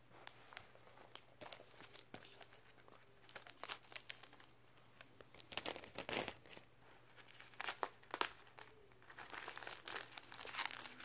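Plastic shrink-wrap being peeled off a paperback book, crinkling in irregular bursts. The loudest bursts come about six and eight seconds in and again near the end.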